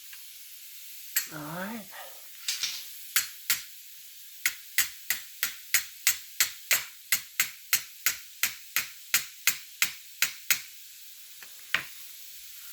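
A long, even run of about twenty sharp clicks or taps, roughly three a second, with one more near the end, from parts of a Beretta A300 Outlander shotgun being worked during reassembly.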